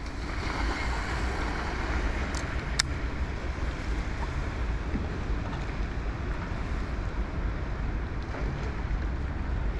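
Wind buffeting the microphone outdoors: a steady low rumbling hiss, with two short clicks about two and a half seconds in.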